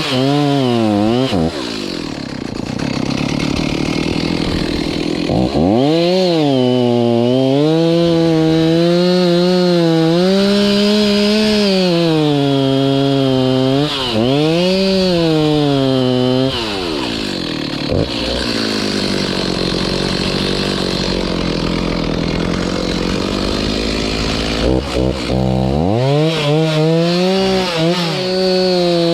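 Chainsaw cutting into a tree, its engine held at high revs with the pitch wavering as the chain works through the wood. Twice it drops to a lower, rougher run, about two seconds in and again from about seventeen to twenty-six seconds, before revving back up.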